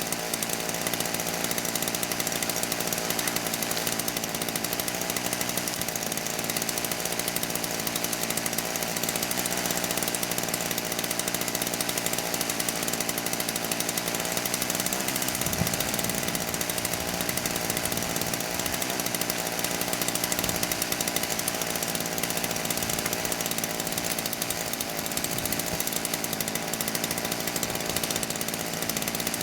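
Gas chainsaw running steadily at high revs, cutting sawmill slab wood into firewood lengths.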